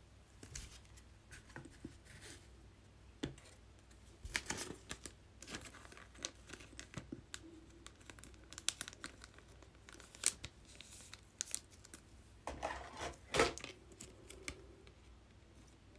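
Soft plastic crinkling and rustling with scattered small clicks and taps: a trading card being handled and slipped into a plastic card sleeve.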